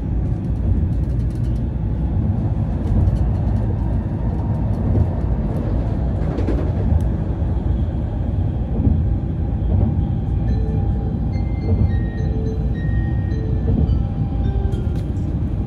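Cabin noise of a Tokaido Shinkansen bullet train at speed: a steady, dense low rumble of running gear and rail. About ten seconds in, a melody of clear notes stepping in pitch comes in over it.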